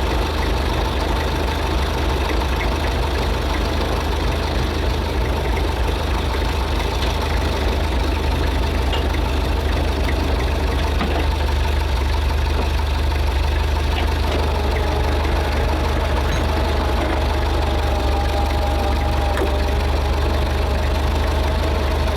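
An engine running steadily with a deep, even rumble and a faint whine that shifts a little in pitch about two-thirds of the way through.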